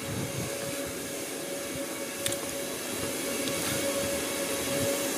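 Steady machinery hum of a CNC machine shop: a constant mid-pitched tone over a hiss, growing slightly louder over the few seconds, with one faint click about two seconds in.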